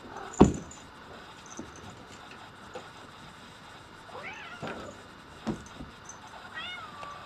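Russian Blue cat meowing twice, short rising-and-falling calls about four seconds in and again near the end. A sharp knock about half a second in is the loudest sound, with a second knock at about five and a half seconds.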